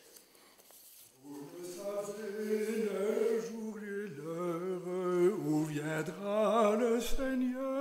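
Men's voices singing a slow liturgical chant, an Advent hymn in French, beginning about a second in.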